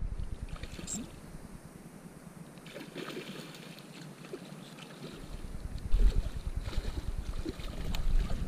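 Wind rumbling on the microphone, dying away for a few seconds in the middle and coming back, over faint water lapping and light knocks around a stand-up paddle board.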